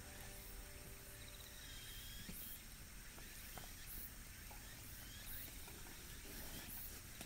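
Faint outdoor ambience: insects chirping in short pulsing trills, with a few soft crackles from a small wood fire burning under a campfire grill.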